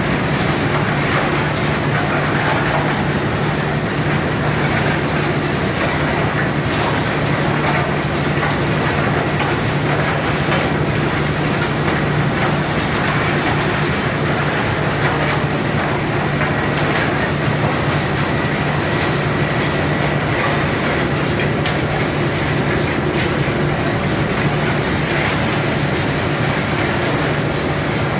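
Coal upgrading machine running: a steady, dense mechanical rattle over a low hum, with a faint high whine.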